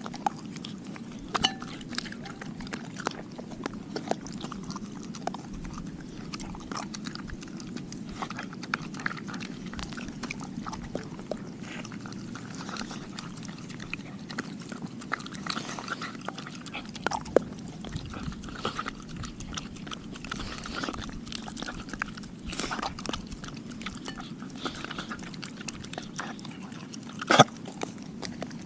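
Dog chewing and biting a raw meal of chicken, steak, sardine and egg from a glass bowl, with many sharp clicks and crunches scattered throughout; the loudest comes near the end.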